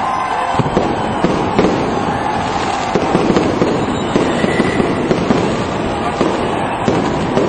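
Fireworks display: aerial shells bursting in a dense, continuous run of bangs and crackles, several a second.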